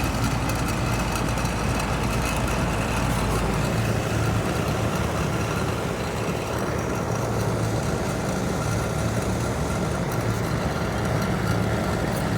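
Outdoor air-conditioning condenser unit running steadily, its compressor humming and its newly replaced condenser fan motor turning. The unit is running normally, drawing good amps.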